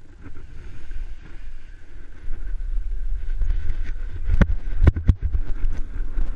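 Wind buffeting the microphone during a paraglider launch, a low rumble that builds as the wing comes up overhead and the pilot runs off the slope. It is broken by three sharp knocks a little past the middle.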